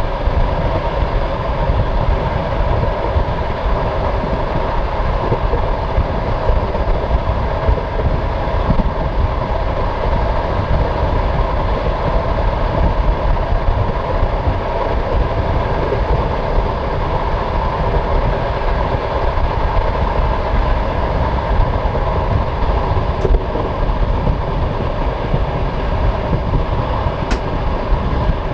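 Passenger train carriage running steadily along the track: a continuous rumble of the wheels on the rails.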